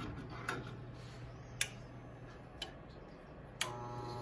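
A few sharp clicks about a second apart, then near the end a last click as a gas furnace's draft inducer motor switches on and starts to hum, the first step of the furnace's ignition sequence.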